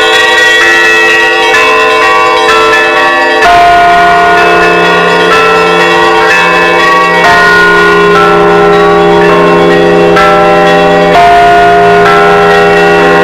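Loud ringing of Russian Orthodox church bells in a festive Easter peal. Many smaller bells chime in overlapping patterns, and a deep bass bell comes in about three and a half seconds in and is struck again near the end.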